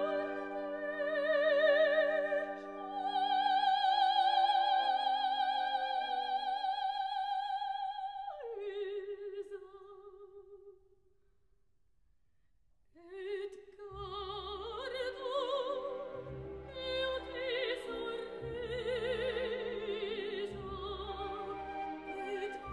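Operatic soprano with orchestra: long held notes sung with wide vibrato, slipping down to a lower note about a third of the way in. After a brief near-silent pause in the middle, the voice returns over fuller orchestral accompaniment with low string notes.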